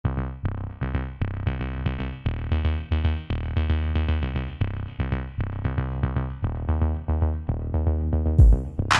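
Background music: an electronic track with a steady beat, a run of short synthesizer notes over a deep bass line, and a louder, crash-like hit near the end.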